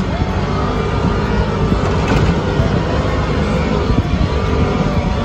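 Jeep Wrangler driving along a sandy dirt track: the engine runs at a steady pace under a continuous rumble of tyre and road noise.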